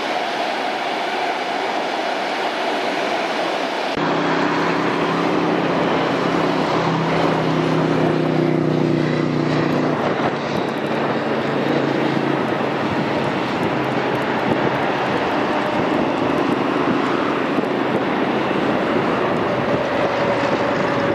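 Electric commuter trains running on the rails as a steady rumble. About four seconds in the sound changes abruptly: an approaching Lastochka electric multiple unit brings several low steady humming tones for about six seconds, which then fade into a broad steady rail rumble.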